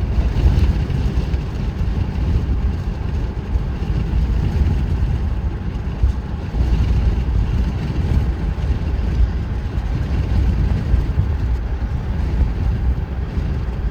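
Car driving at about 35 mph: a steady low rumble of road and engine noise.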